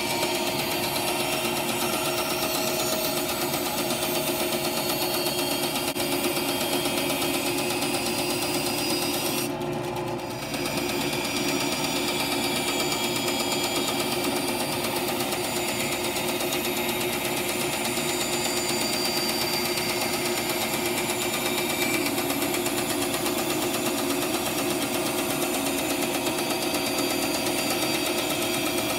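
A Rikon 10-305 10-inch bandsaw running steadily and cutting wood fed along its fence, with a repeated click from the blade weld striking the rear thrust bearing: the bearing needs adjusting. The high hiss of the cut briefly drops away about ten seconds in.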